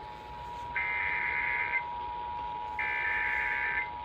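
Emergency Alert System two-tone attention signal, a steady dual-tone alarm. A separate higher electronic beep sounds over it twice, each about a second long and two seconds apart.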